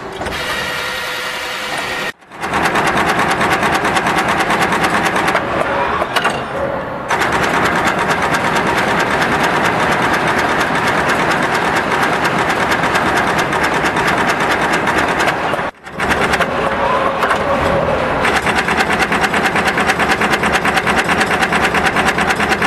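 Automatic axial insertion machine running, a fast, even mechanical clatter as it inserts axial-lead components into a circuit board. The sound breaks off briefly twice.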